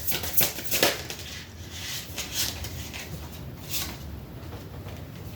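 Tarot cards being shuffled and handled, a few short rustles spread over several seconds.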